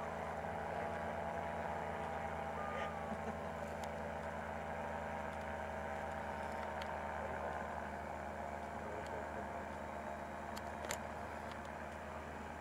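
Distant powered paraglider's paramotor engine droning steadily and faintly overhead. A sharp click sounds about eleven seconds in.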